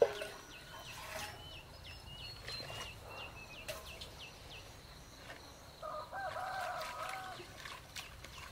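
Birds calling outdoors: a small bird chirps in short, quick falling notes, about three a second, for the first few seconds. A short wavering call comes about six seconds in. A sharp knock sounds right at the start.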